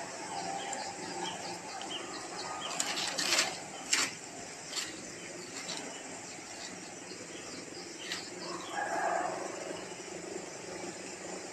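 Dry palm fronds and nest fibres rustling and crackling in a few short bursts, loudest about three to four seconds in, over steady background noise.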